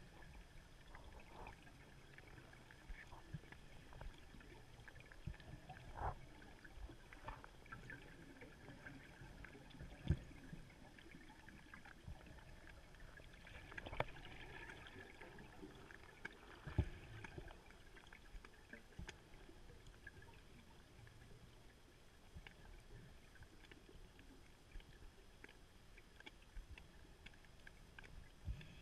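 Faint underwater ambience heard through a camera's waterproof housing: a low hiss with scattered single clicks and knocks.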